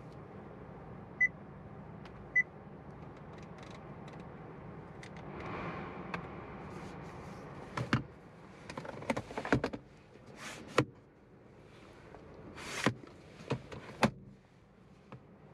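Two short electronic beeps from the 2021 Honda Civic, about a second apart, then a run of plastic clicks, knocks and short sliding scrapes as the center console's parts and armrest lid are handled.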